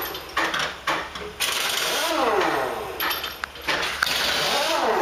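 Air impact wrench running in three bursts, each with a hiss and a rattle, its pitch rising and then falling.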